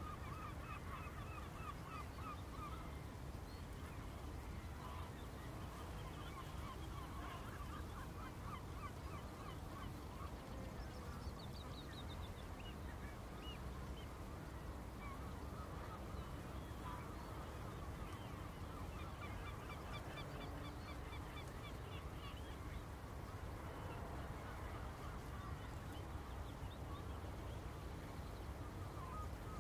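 A flock of geese calling: many short, overlapping honks throughout, over a steady low rumble, as Wadden Sea mudflat ambience.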